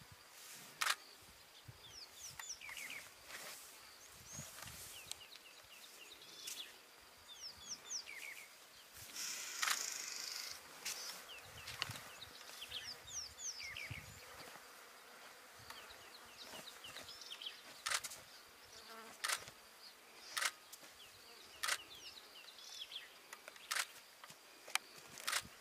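Bush ambience: many short, upward-gliding bird chirps over a faint steady insect hum, with sharp clicks scattered through.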